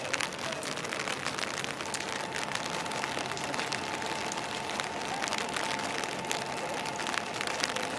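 Rain falling, with scattered drips and patters. A steady high tone comes in about two seconds in and holds.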